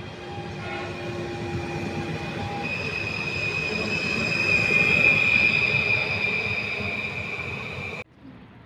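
A train running past on the station track, its noise swelling and fading, with a steady high-pitched wheel squeal that gets louder from about three seconds in; the sound cuts off suddenly near the end.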